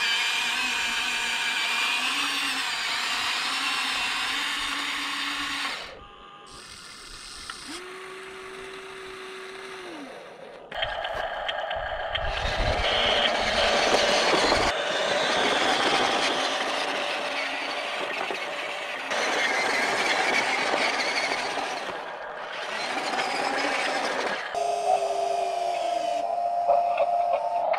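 Huina 1593 RC excavator's small electric motors and gearboxes whining in bursts as it works, dropping to a faint hum about six seconds in and picking up again about four seconds later.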